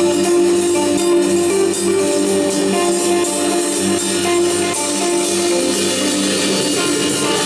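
Live band playing an instrumental passage: electric guitar and electric bass holding sustained notes over a steady, light, fast ticking percussion rhythm.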